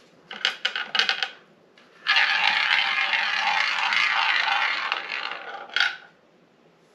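Tabletop shot-glass roulette wheel being spun: a few clicks as it is set going, then the ball rolling and rattling around the wheel for about four seconds, ending in a final click as it settles.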